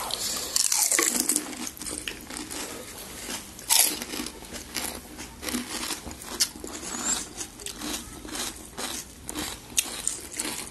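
Crisp panipuri shells crunching and crackling in many small irregular cracks, close to the microphone.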